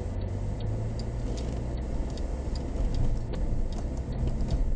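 Car turn-signal indicator ticking evenly, about two to three ticks a second, as the SUV turns right, over the low steady hum of its engine and tyres on the wet road inside the cabin.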